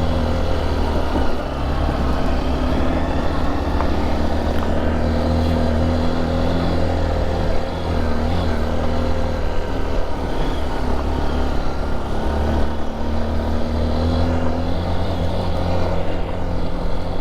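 Single-cylinder trail motorcycle engine running steadily under way, its pitch nearly constant with slight wavers.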